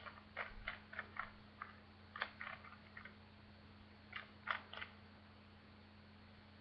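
Plastic speed cube being turned by hand: quick runs of clicking layer turns through the first three seconds, then another short run about four and a half seconds in. A steady low electrical hum lies underneath.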